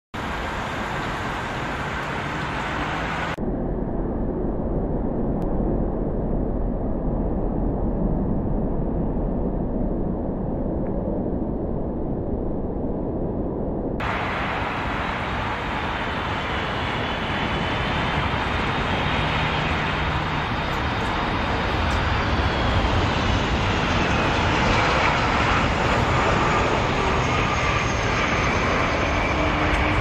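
Airbus A330 jet engines on final approach: a steady rush with a faint whine that slowly falls in pitch, growing louder as the airliner comes nearer. The sound is duller between about 3 and 14 seconds, then changes abruptly back.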